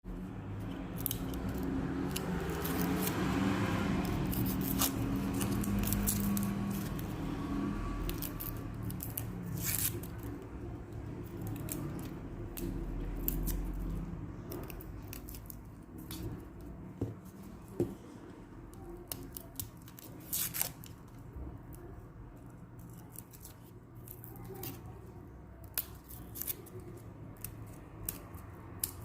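Red garlic cloves being peeled by hand: dry papery skins rustling and crackling for the first several seconds, then a scattering of short, sharp clicks and snips.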